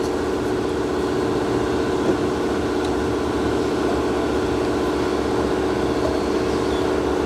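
Steady droning hum of a running machine, even and unchanging, with a faint tap about two seconds in.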